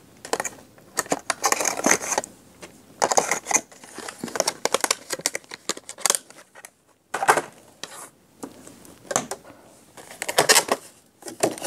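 Irregular clicks and clatter of craft supplies being handled: plastic bottles being put away and a clear plastic case of wood-mounted rubber stamps being moved and opened, with a short pause about halfway through.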